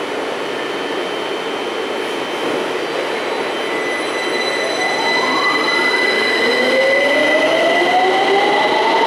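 London Underground Victoria line 2009 Stock train pulling away from the platform: a steady high whine while it stands, then from about halfway two rising whines from the traction drive as it accelerates, growing louder.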